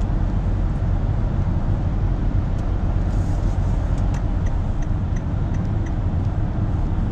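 Steady road and engine rumble heard inside the cabin of a moving car, with a few faint ticks around the middle.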